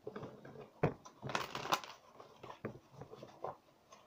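A deck of tarot cards being handled and shuffled: irregular taps and rustling, with a denser flurry of card noise about a second and a half in.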